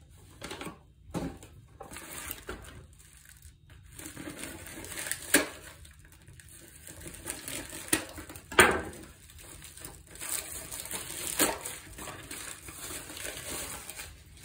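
Plastic bag and padded mailer packaging rustling and crinkling as it is handled and moved, with a few louder sharp crackles.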